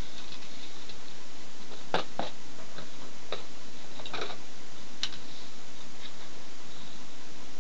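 A handful of light clicks and taps over a steady hiss; the sharpest come about two seconds in and about five seconds in.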